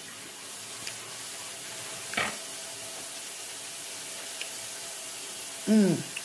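A steady hiss fills the background, with a faint steady hum under it. About two seconds in comes a brief sharp noise, and near the end a woman's voice gives a short hum that falls in pitch.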